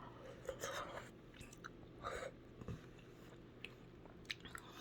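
A person chewing a mouthful of sinigang soup and rice, in two short noisy spells, with a few small clicks later.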